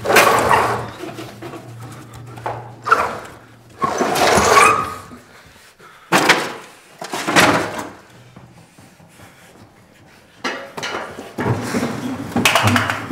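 Several loud bangs and thuds, one every second or two, with a heavier cluster near the end, sounding in a small room.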